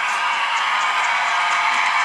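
Model diesel locomotive's DCC sound decoder playing a steady diesel engine sound through its small onboard speaker. The sound is thin and tinny, with almost no bass.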